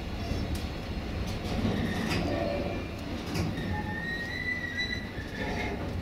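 Container wagons of a freight train rolling past: a steady rumble of wheels on rail with scattered clicks. A high wheel squeal rings out for about a second and a half, starting near the middle.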